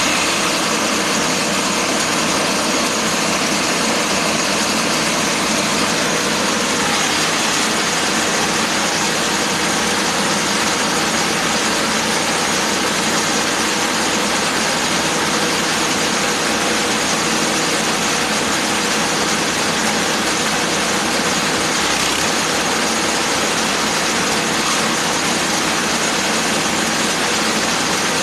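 Grass chopper machine running steadily at an even, loud pitch.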